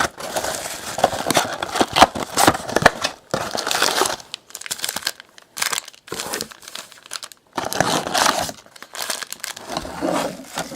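Plastic wrapping on a box of trading card packs crinkling and tearing as it is opened by hand, in uneven handfuls of crackle and sharp clicks with short pauses.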